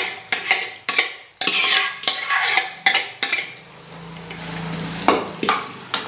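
A steel spoon scraping and knocking against a metal pot as mashed vegetables are scraped into the masala and stirred, in a quick run of sharp clicks and scrapes. A short low hum comes in about four seconds in, then a few more knocks.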